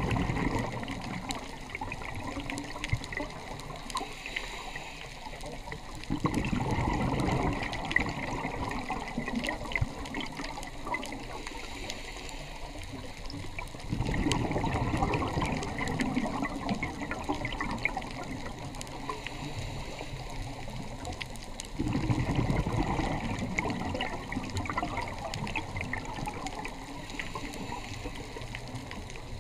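Scuba diver's exhaled bubbles from the regulator, a burst of bubbling lasting a couple of seconds and coming about every eight seconds over a steady underwater hiss, with faint scattered crackling clicks.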